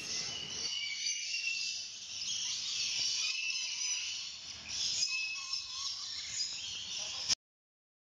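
Many birds chirping and calling together, a dense high-pitched chorus that cuts off abruptly near the end.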